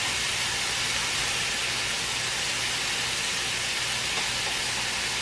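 Thin-sliced steak pieces sizzling steadily in a hot frying pan.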